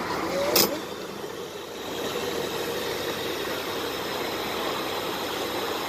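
Liquid running from a pump nozzle into a plastic jug over a steady motor hum, with one sharp click about half a second in.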